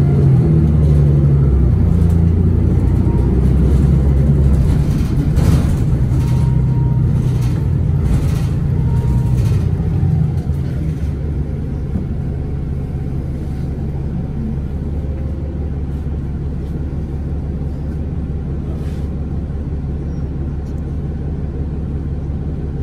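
The Cummins ISL9 diesel engine of a 2011 Orion VII transit bus running under load, with a few knocks or rattles in the middle. About ten seconds in it eases off to a quieter, steady drone.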